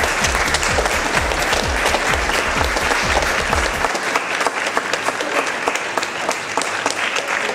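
A small crowd applauding, many hands clapping together.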